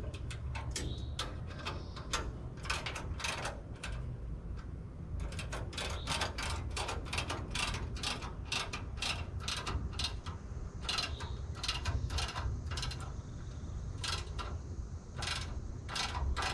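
Hand ratchet wrench clicking in runs of strokes, about two or three clicks a second with a couple of short pauses, as bolts on the truck's front suspension are turned. A steady low rumble lies underneath.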